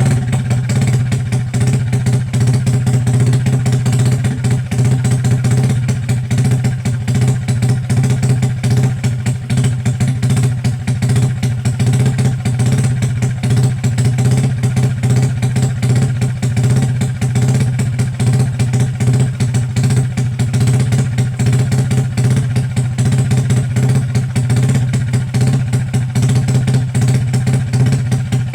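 Truck engine running steadily at a constant idle, with an even low beat and no revving.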